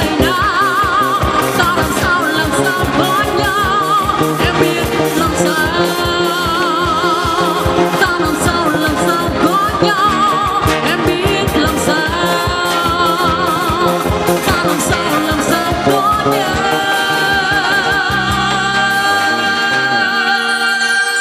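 Woman singing a ballad into a microphone with vibrato, backed by a live band of drum kit, keyboard and guitars. Near the end the drums stop and she holds one long note over the remaining accompaniment.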